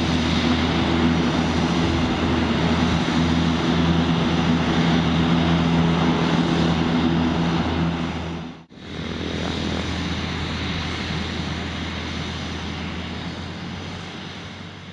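Piaggio P.180 Avanti II's twin Pratt & Whitney PT6A turboprops with pusher propellers running at taxi power: a steady propeller drone with a turbine hiss over it. The sound drops out sharply for a moment about two thirds of the way through, then returns and fades down near the end.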